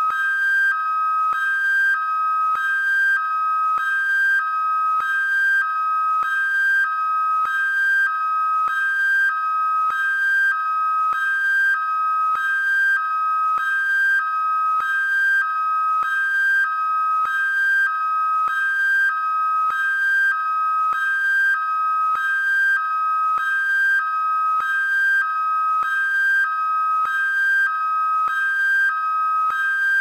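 American police car hi-lo siren: two steady tones, one high and one low, alternating evenly, a little more than one high-low pair a second.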